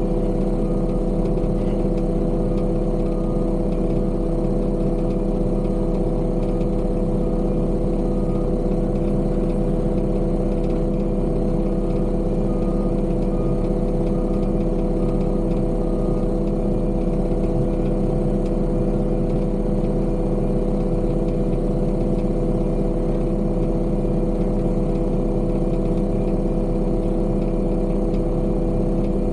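Diesel engine of heavy construction equipment running steadily at a constant pitch. A faint series of evenly spaced beeps comes in twice, about a second in and again near the middle.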